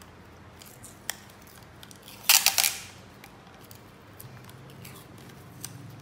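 Clear sticky tape pulled off its roll with one loud rasp about two seconds in, as it is wrapped around a bundle of plastic drinking straws; a few light clicks from the straws and tape roll being handled.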